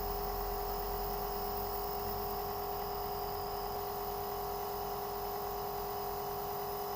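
Compressor nebulizer running during an inhalation treatment: a steady, even hum with a constant pitch.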